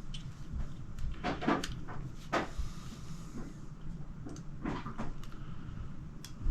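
A few short scraping clicks and rustles, some two or three seconds apart: insulated wire being stripped with plier-type wire strippers and the wire ends handled.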